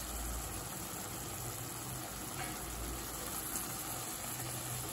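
Mushroom and capsicum masala simmering in a kadai on low heat: a steady, faint sizzle with no distinct knocks.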